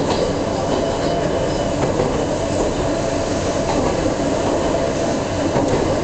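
Ohmi Railway Moha 220-series electric car running at speed, heard from inside the car: steady rumbling wheel and rail noise with a steady whine from its nose-suspended (tsurikake) traction motors and gearing. A few clicks of wheels over rail joints come through.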